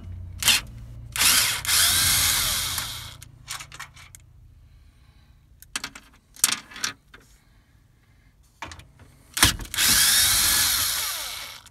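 Power drill with a 9/32-inch socket backing out the radio's mounting bolts in two runs of about two seconds each, one near the start and one near the end. A few short clicks and knocks fall between the runs.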